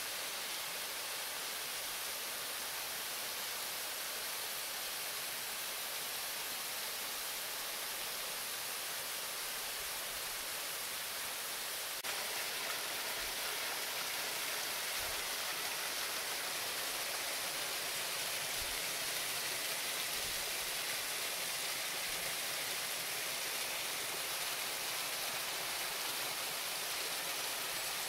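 Waterfall pouring steadily, a dense even rush of water that gets slightly louder about twelve seconds in. A few soft low thumps sound in the middle.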